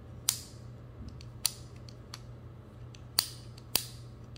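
Atlas bipod with a freshly installed SlapJax pivot worked by hand to check that it moves freely: four sharp metal clicks, with fainter ticks between.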